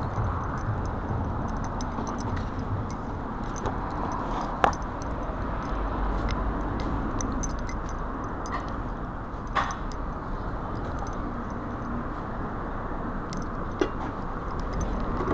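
Rustling and rubbing of a body-worn camera against clothing and handled objects over steady street noise, with three sharp knocks spread through.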